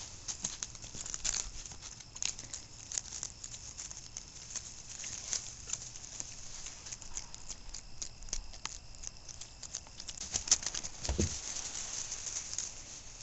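Grass and straw rustling and crackling in many small quick ticks as a mini pig roots and walks through it, with a louder knock and a short low thump about ten and a half seconds in.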